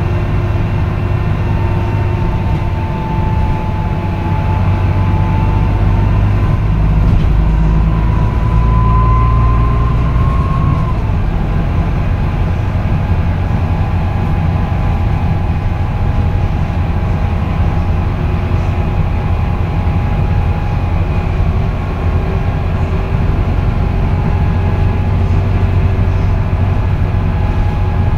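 Volvo B9TL bus's straight-six diesel engine and Voith automatic gearbox heard from inside the passenger saloon while the bus drives: a steady low drone with fainter whines above it. One whine climbs in pitch from about eight seconds in and drops away about three seconds later.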